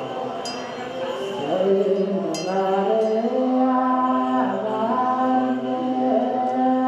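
Male voices singing an Ethiopian Orthodox liturgical chant in long held notes that step from pitch to pitch, rising in strength a second or two in. A small brass hand bell rings twice near the start.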